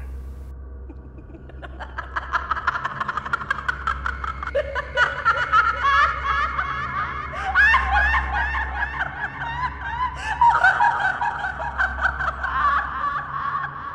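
High-pitched laughter used as a horror sound effect over a low steady drone. The laughing starts about two seconds in, wavers up and down in pitch, and stops just before the narration resumes.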